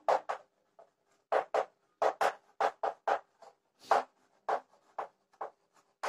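Chalk writing on a blackboard: a rapid, uneven series of short strokes as a line of words is written, over a faint steady hum.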